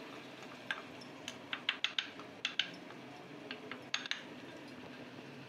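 A metal spoon clinking against steel about a dozen times, in short irregular taps bunched through the middle, as spoonfuls of spice powder are added to a steel kadai. A faint steady hiss runs underneath.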